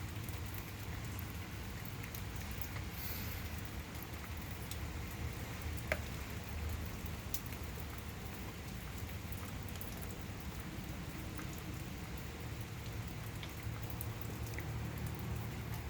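Heavy rain falling steadily, with a few sharp ticks of single drops.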